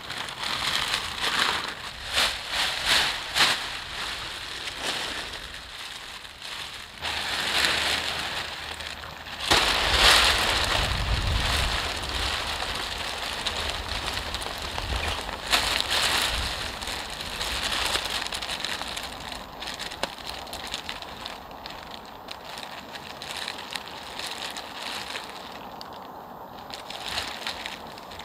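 Thin clear plastic sheeting from a homemade tarp, made from a mattress cover, crinkling and rustling as it is handled and stretched out, with a louder spell about ten seconds in.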